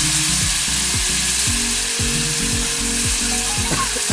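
Masala frying in ghee in a kadhai: a steady sizzle, with a spoon stirring and scraping through it in repeated strokes about twice a second.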